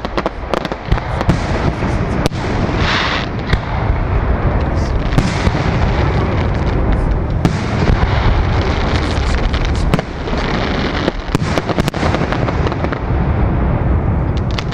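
Aerial firework shells bursting in a dense, unbroken barrage: deep booms overlapping with many sharp bangs and crackle.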